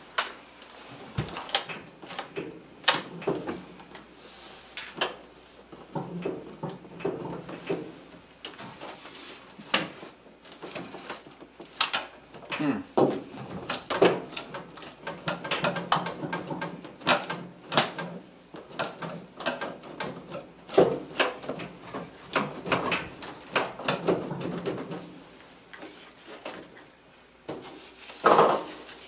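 Irregular clicks, knocks and rubbing from hands and tools working on the sheet-metal cabinet and parts of an electric furnace being taken apart.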